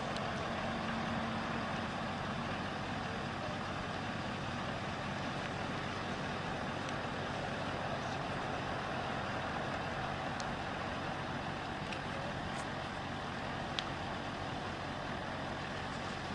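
Fire crew's engine-driven water pump running steadily under an even hiss, with a few faint ticks.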